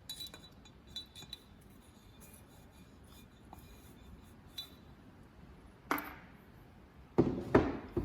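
Metal engine parts handled on a workbench: light metallic clinks, then a knock and two heavier knocks in quick succession near the end, each ringing briefly.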